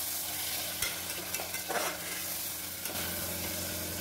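Chopped tomatoes and onion sizzling in oil in an aluminium pressure cooker as a metal spatula stirs and scrapes the bottom every second or so. The masala is being sautéed slowly on low heat to cook off its water.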